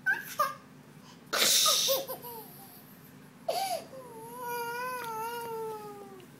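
A baby's voice: short squeals, a loud breathy burst, then one long wavering cry of about two seconds that slowly falls in pitch near the end.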